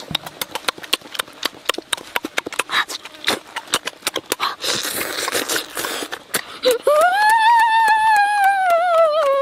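Wet, rapid mouth clicks of chewing and lip-smacking while cooked fish is eaten by hand, with a brief hiss of sucking partway through. About seven seconds in, a child starts a long high-pitched hum through closed lips that rises and then slowly falls.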